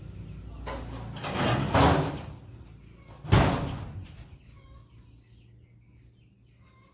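A rushing noise that swells and fades over about a second and a half, then a single loud bang with a short ring-out.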